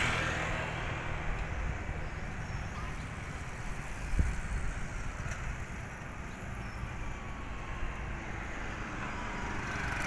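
Motorcycle traffic on a town road: a motorcycle passing at the start, then a motorcycle tricycle going by, over a steady low rumble of traffic. A brief low thump about four seconds in.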